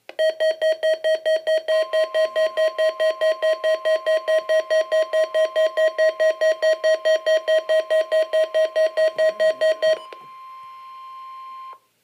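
Midland WR-300 weather radio sounding its alert siren on receiving a NOAA Weather Radio Required Weekly Test: a loud, rapid pulsing beep, about five beeps a second, with a steady higher tone joining after about two seconds. After about ten seconds the beeping stops and a quieter steady tone carries on for nearly two seconds, then cuts off.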